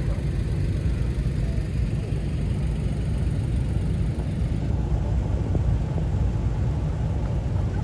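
Steady low rumble of cars moving slowly through a car park.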